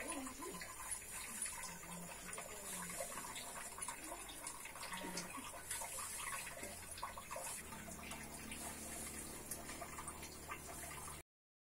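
Faint background ambience: a steady high hiss with weak scattered low sounds. A low steady hum comes in about eight seconds in, and then everything cuts off abruptly near the end.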